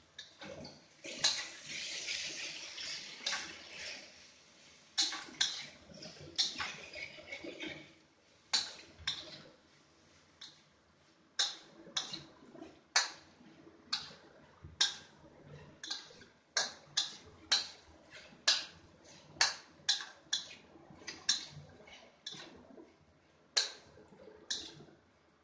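Stir-frying in a steel wok with a metal spatula. A stretch of sizzling and tossing in the first few seconds gives way to a run of sharp scrapes and clacks of the spatula against the wok, a little over one a second.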